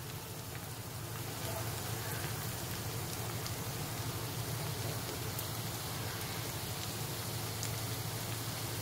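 Poha chakli dough sizzling in hot oil as it is pressed from a chakli press straight into the pan: a steady frying hiss that gets a little louder about a second and a half in.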